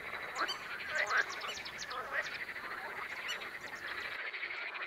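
Chorus of frogs croaking in a marsh, many short calls overlapping continuously.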